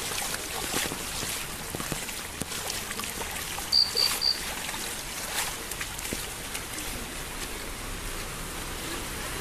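Heavy rain and floodwater running across a road: a steady rush of water. Three short high beeps come in quick succession about four seconds in.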